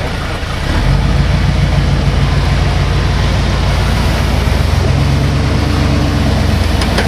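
Early Ford Bronco rock crawler's engine pulling under load as it crawls up over boulders. Its note steps up less than a second in and then holds steady.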